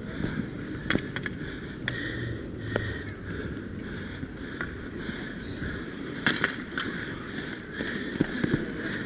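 Inline skate wheels rolling on a hard rink surface, a steady rumbling whir, with sharp clacks of hockey sticks hitting now and then: single hits in the first few seconds, a cluster about six seconds in, and another near the end.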